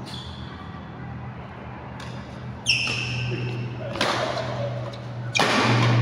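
Badminton rally: sharp racket hits on the shuttlecock and a squeak of court shoes, over a steady low hum from the hall. A louder sound starts near the end.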